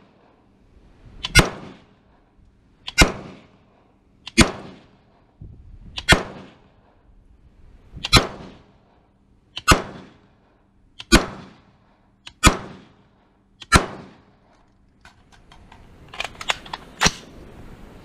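Daniel Defense DDM4V5 AR-15 rifle in 5.56 mm firing single shots, nine evenly paced about a second and a half apart, each a sharp crack with a short echo. Near the end comes a quick run of fainter cracks and one more loud shot.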